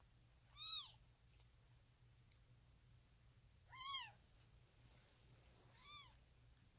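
Newborn kitten mewing: three short, high-pitched mews that rise and fall, a few seconds apart, the last one fainter.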